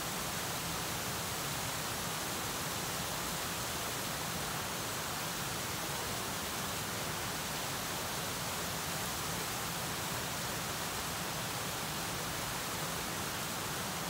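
Small waterfall on a stream running steadily: an even rush of water with no breaks or changes.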